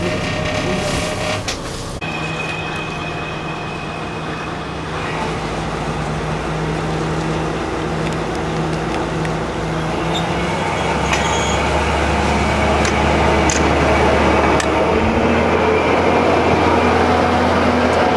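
KiHa 20-series diesel railcar running, its engine a steady mechanical sound; about ten seconds in the engine note grows deeper and louder as the railcar works close by.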